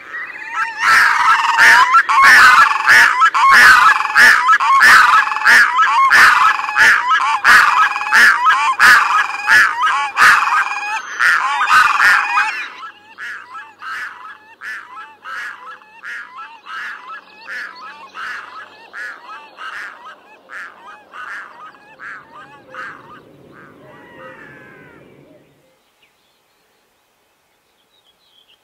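Red-throated loons calling in a display duet: a fast, rhythmic run of harsh wailing calls about two a second, loud for the first dozen seconds, then fainter, dying away a few seconds before the end.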